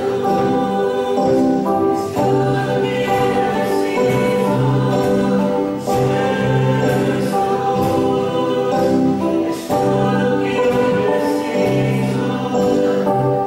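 Live worship band playing a slow gospel song: women's voices singing over guitar and drums, with light cymbal strokes.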